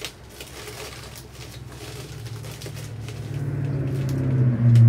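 Plastic bubble wrap rustling and crinkling as it is pulled off a package by hand, with a low steady hum that swells louder over the last couple of seconds.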